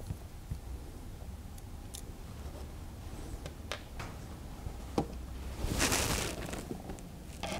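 Handling noise from a metal airgun action being worked on at a bench: a few light clicks and taps of small parts and tools, then a louder rustle about six seconds in, over a steady low hum.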